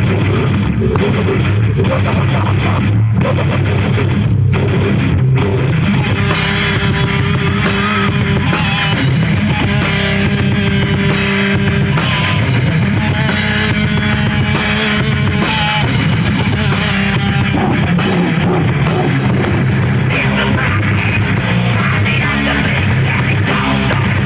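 A heavy metal band playing live on distorted electric guitars, bass and drum kit. For the first few seconds the band plays choppy hits with short breaks between them, then goes into continuous full-band playing about six seconds in.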